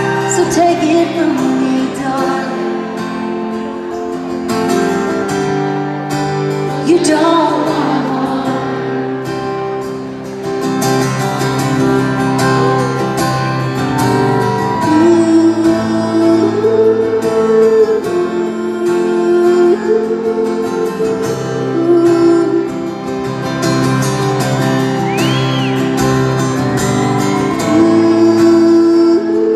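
Live concert music heard from the crowd in an arena: a woman singing held, wavering notes over acoustic guitar.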